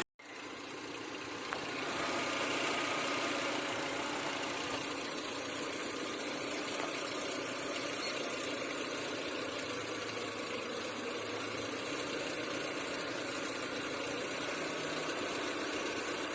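Car engine idling steadily while it carries the load of a 12 V to 220 V inverter running a 2200 W electric kettle. The sound cuts out briefly at the very start, then fades back in over about two seconds and holds steady.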